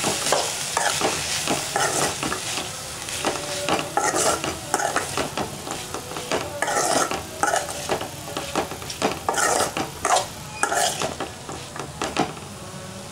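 Spatula stirring and scraping chopped green beans, tomato and onion in a steel pan, in irregular strokes over a frying sizzle, to work in the added chilli and coriander powder.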